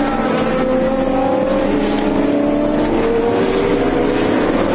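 Engines of a pack of GT race cars at high revs, several engine notes overlapping, their pitch slowly rising as the cars accelerate.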